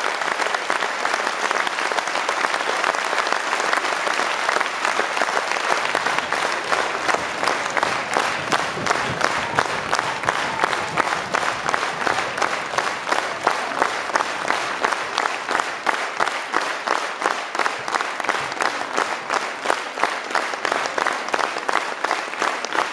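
Audience applauding; about six seconds in, the clapping settles into a steady rhythm in unison, roughly two to three claps a second, and keeps that beat.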